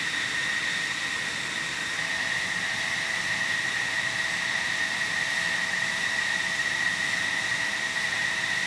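F-16 jet engine idling: a steady high whine over a rushing hiss, with a fainter lower tone joining about two seconds in.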